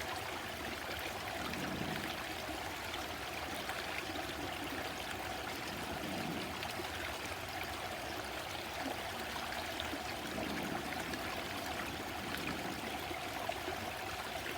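A stream flowing and burbling steadily, an even rush of running water.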